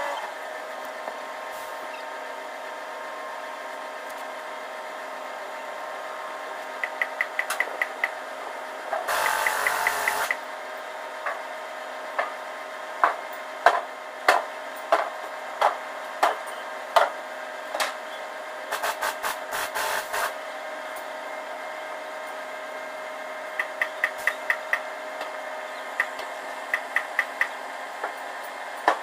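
A steady background hum, broken by short runs of fast, even clicks, two brief bursts of rustling noise, and a string of single sharp knocks about one every 0.7 seconds in the middle.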